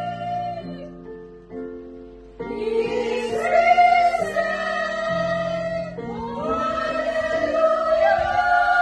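Women's choir singing an Easter anthem in long held notes. The singing thins and drops quieter about a second in, then the full choir comes back in strongly about two and a half seconds in and sustains the line.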